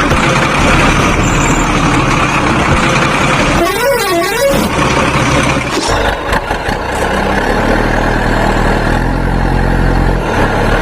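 Dense vehicle sound effects: horns honking, with a quick down-and-up siren sweep about four seconds in, then a steady engine hum from about halfway through.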